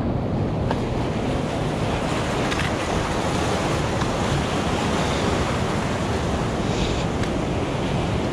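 Pacific surf washing in over rocky shore, a steady rush of breaking waves and foaming water swirling around boulders.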